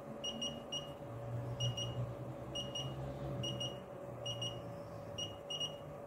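FeelTech FY6900 function generator giving short, high electronic beeps as its adjustment knob is turned step by step to raise the frequency, about fourteen beeps in quick pairs or threes roughly once a second. A faint steady hum runs underneath.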